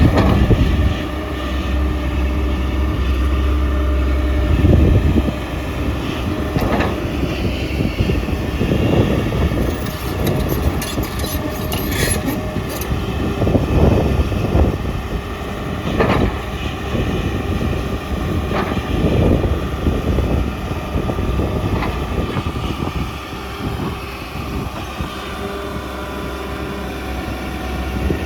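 Excavator's diesel engine running steadily, with irregular knocks and scrapes from digging.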